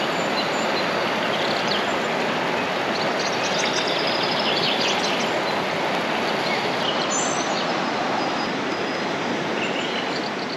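Steady rush of flowing river water, with faint, short high chirps over it; the sound begins to fade near the end.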